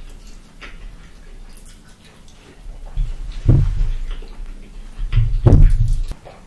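Close-miked eating sounds: chewing fried food picked up by hand, with two loud bouts of low thumping about three and five seconds in.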